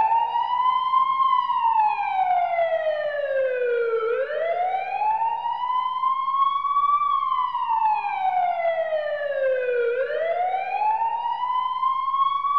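Police siren wailing: one tone sweeping slowly up and then down again, a full rise and fall about every six seconds.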